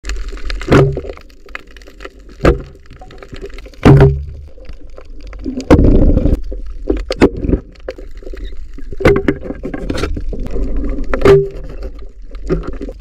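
Muffled underwater sound picked up by a camera in its housing while diving on a reef: a low rumble of water broken by a series of sharp knocks and clicks, with a longer rush of churning water about six seconds in.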